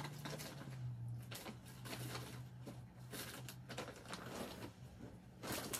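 Light rustling and scattered clicks of costume pieces and belongings being handled and set down, over a steady low hum.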